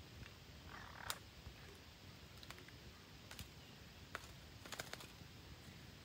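Faint, scattered clicks and ticks from green parrots shifting on thin branches, with the sharpest click about a second in and a few close together near the end, over quiet forest background.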